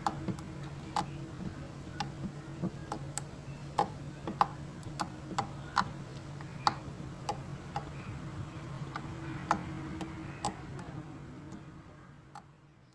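Glossy slime being squeezed and pressed, giving irregular sharp clicks and pops of trapped air, one or two a second, over a steady low hum. Everything fades out near the end.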